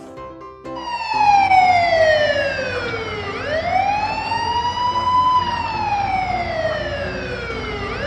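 Police car siren wailing in slow sweeps. It starts about a second in, falls in pitch, rises again around the middle, and falls once more toward the end.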